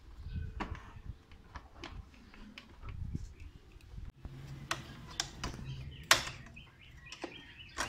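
Irregular sharp clicks and light taps of plastic panels, clips and small parts being handled on a motorcycle, with one louder click about six seconds in.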